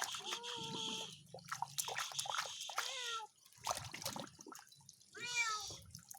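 A cat meowing three times, near the start, about three seconds in and about five seconds in, while it is being bathed. Water splashes and drips around it, mostly in the first half.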